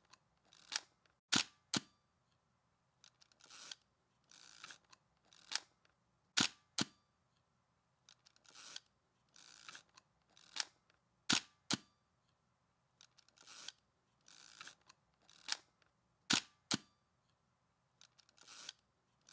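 Film camera shutter clicks and the film being wound on, repeated about every five seconds: a soft winding rasp, then a sharp shutter click followed by a pair of quick clicks.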